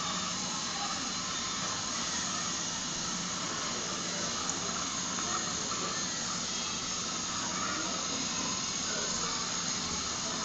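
Water boiling in a steel pot with pieces of marble in it, a steady hiss.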